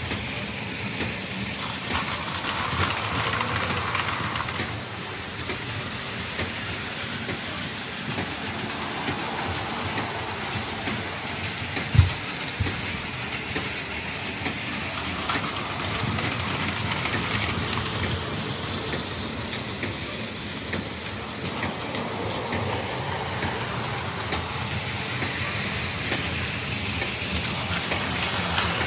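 Battery-powered Plarail toy trains running steadily on plastic track, with a single sharp knock about twelve seconds in.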